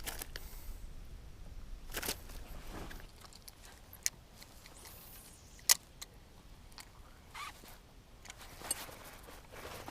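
Handling noises aboard a fishing boat: a few brief rustles and scattered sharp clicks and knocks, the loudest a single sharp click about six seconds in.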